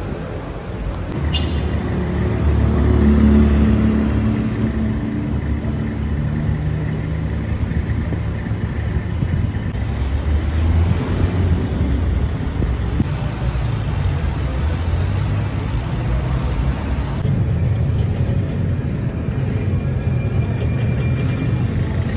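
Street traffic: car engines running and passing, a steady low rumble that swells as vehicles go by, loudest about three seconds in.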